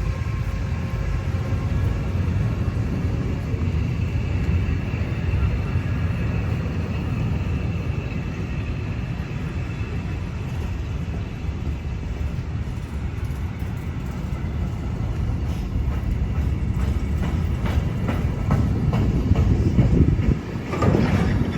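Train running on the rails: a steady low rumble, with faint steady tones early on and a run of rapid clicks in the second half.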